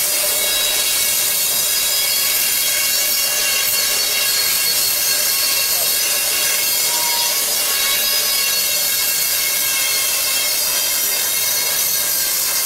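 Band saw cutting lengthwise through a frozen tuna loin, its blade making a steady, high-pitched screech with many whining tones as it runs through the frozen flesh.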